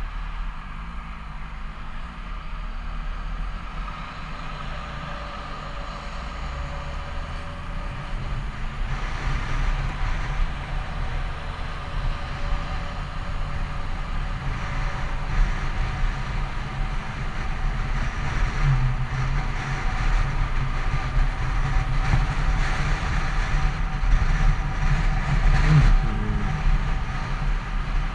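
Yamaha FZ6 inline-four engine running at highway speed, with wind and road rush over it. The engine note climbs in pitch over the first several seconds as the bike speeds up, and the sound grows gradually louder.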